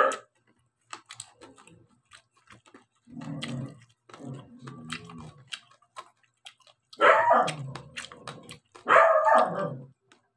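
A dog barking and whining in several drawn-out calls, the two loudest in the second half, over small clicks.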